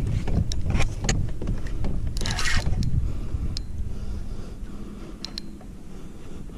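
Wind rumbling on the microphone, easing after about four seconds, with scattered clicks and knocks from fishing gear and the kayak being handled. A short hissing rush comes about two seconds in.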